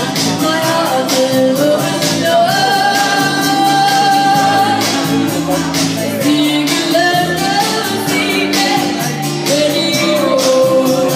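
A woman singing long held notes over a backing track with a steady beat.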